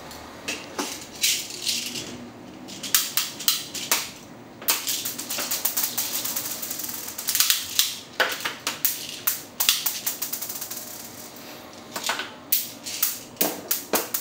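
Irregular sharp clicks, clinks and rattles from a small black part of a G&G Kar98 CO2 airsoft rifle worked by hand, some single and some in quick runs.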